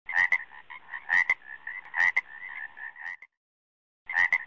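Croaking calls: a pair of sharp clicks about once a second with a pulsing buzzy note between, cutting off abruptly about three seconds in and starting again near the end.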